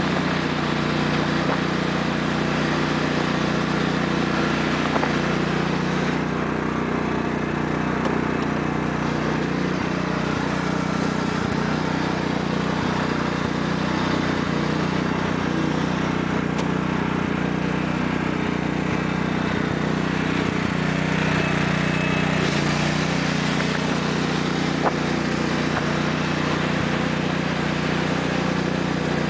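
Lawn tractor's 14 hp Kohler single-cylinder OHV engine running steadily at a constant throttle, pulling the tractor as its rear tyres spin on ice and frozen hail.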